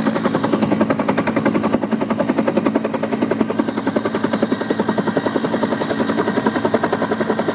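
Helicopter rotor chop: a rapid, even beating of the blades over a steady engine hum, loud and unbroken.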